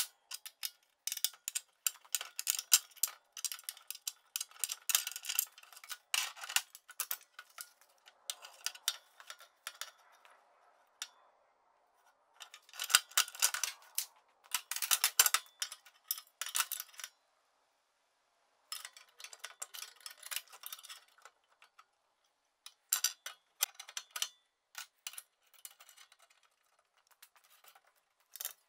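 Irregular clinks, clicks and light clanks of steel parts and tools being handled on a belt grinder's frame, with a brief silence a little past the middle.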